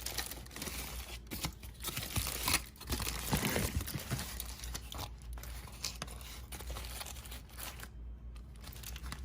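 Crinkling, rustling and tearing of crinkly wrapping being handled around a just-roasted chicken, busiest about a third of the way in.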